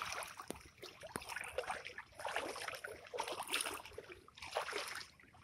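Shallow floodwater sloshing and splashing in irregular bursts, with two sharp clicks in the first second or so.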